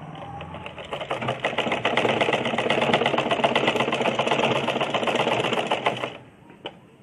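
Old black sewing machine stitching strips of cloth together: a rapid, even needle clatter that picks up speed over the first second or so, runs steadily, and stops abruptly near the end.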